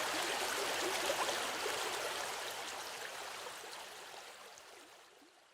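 River water flowing: a steady rushing with small gurgles, fading out over the last few seconds.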